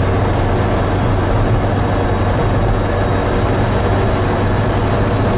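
A 1970 Volkswagen Transporter van cruising steadily in third gear at about 45–50 mph, heard from inside the cabin: engine and road noise make an even drone with a constant low hum.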